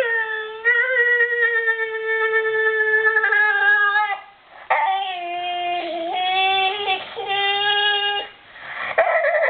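Dog making a drawn-out, Chewbacca-like howling moan. One long held wail lasts about four seconds; after a short break a second wail steps up and down in pitch, and a third begins near the end.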